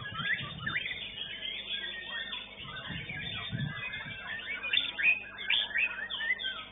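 White-rumped shama (murai batu) singing a fast, varied run of chirps and trills, with a few low thumps.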